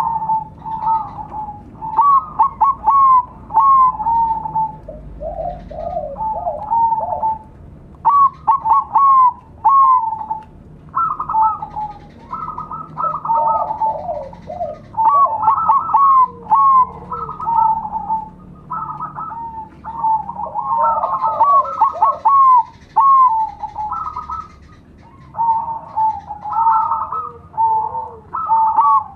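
Several zebra doves (perkutut) cooing at once. Short coo phrases repeat and overlap from different birds, some higher and some lower in pitch, with brief pauses between runs.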